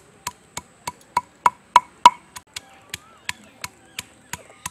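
Stone pestle striking garlic, chillies and onion on a flat stone grinding slab (sil-batta), a run of sharp knocks about three a second, loudest near the middle. This is the coarse crushing stage before the masala is ground.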